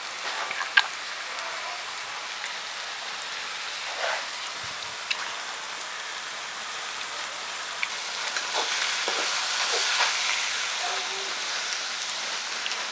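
Chopped small onions, green chillies and ginger-garlic paste sizzling in hot oil in a kadai, with a few light clicks; the sizzle grows louder about eight seconds in.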